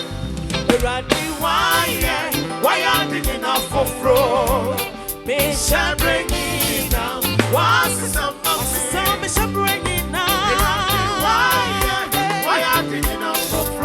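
Upbeat gospel music with a steady, regular beat and a wavering melodic lead line.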